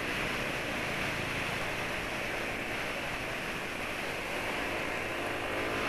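Steady wind rush over the microphone mixed with road and engine noise from a motorbike being ridden at speed.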